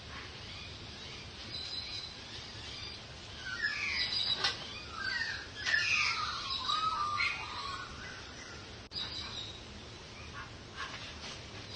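Birds calling, a burst of chirping calls in the middle, over steady outdoor background noise.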